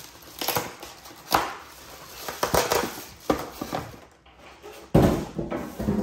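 Polystyrene foam packing blocks being pulled off an espresso machine wrapped in a plastic bag: a series of sharp knocks and rustles, with the loudest thump about five seconds in.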